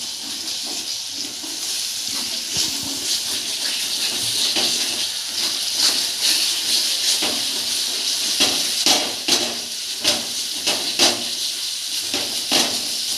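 Masala frying in hot oil in a pan: a steady sizzling hiss with frequent sharp crackles in the second half.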